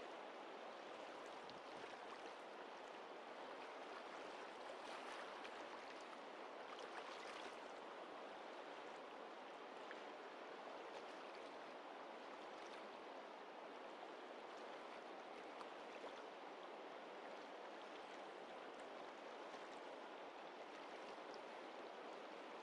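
Faint, steady rush of a river's flowing water.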